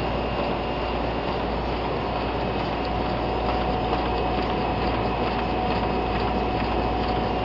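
Komori Lithrone 628 sheetfed offset printing press running: a steady mechanical din with a thin constant whine and the rushing hiss of its air and vacuum pumps.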